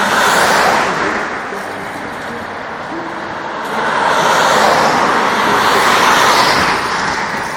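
Race-convoy vehicles driving past close by, one after the other: a van just at the start, then another van with a car behind it from about four seconds in. Each pass is a swell of engine and tyre noise that rises and fades.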